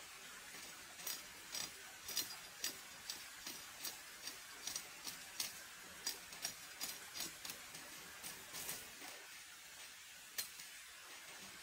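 Machete blade working along a long, thin green vine, a run of sharp, faint ticks about two a second that thins out after about nine seconds, with one last tick near ten seconds, over a steady low hiss.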